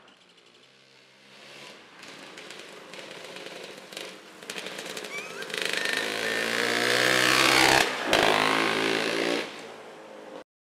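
Motorcycle engine running, growing louder over several seconds and loudest for the last few, with a brief break about eight seconds in, then dropping away near the end.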